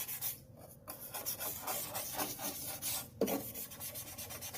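A brush scrubbing the plastic housing of a sewing machine in rapid back-and-forth strokes, with two brief pauses, near the start and about three seconds in.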